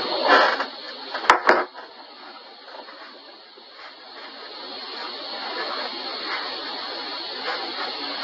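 Lo-fi audio recording of a small, quiet room with a steady hiss. A short rustle comes right at the start, two sharp clicks follow about a second in, then faint handling and rustling noise.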